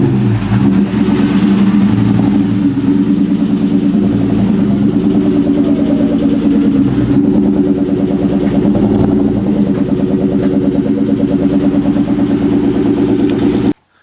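Car engine idling steadily and loudly, then cutting off abruptly near the end.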